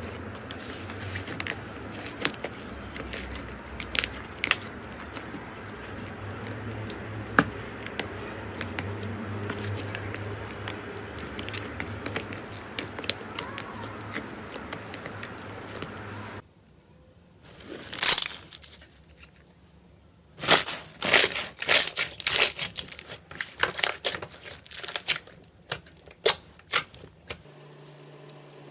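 Slime being squeezed and stretched by hand, crackling and tearing. It gives a steady bed of small crackles at first, then after a sudden change just past halfway, quieter stretches broken by clusters of sharp crackles.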